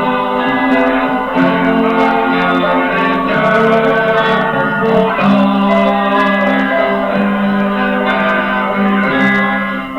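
A song from an old vinyl record: voices singing long held notes over plucked acoustic guitar, with the top end cut off so the sound is dull.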